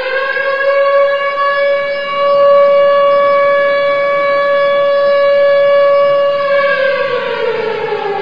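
Civil defence siren sounding one steady held wail, then starting to wind down in pitch about six and a half seconds in. It is the remembrance siren sounded across Turkey at 09:05 on 10 November, when the country stands still in silence.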